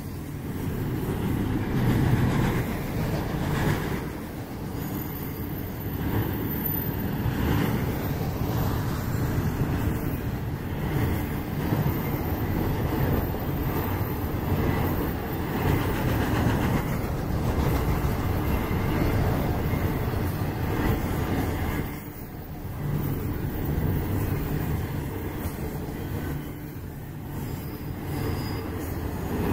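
Intermodal freight cars, double-stack container well cars and trailer flatcars, rolling past: a steady rumble of steel wheels on rail with scattered clatter from the passing trucks. The sound dips briefly a little past twenty seconds in, then picks back up.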